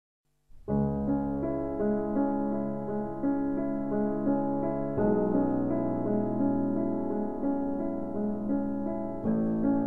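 Slow piano music begins about half a second in, playing held chords that change about every four to five seconds.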